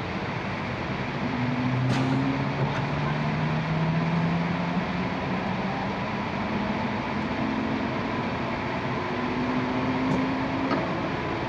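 E6-series Shinkansen heard from inside the passenger car as it pulls away and gathers speed: a steady running rumble with motor whine tones rising slowly in pitch, and a couple of faint clicks.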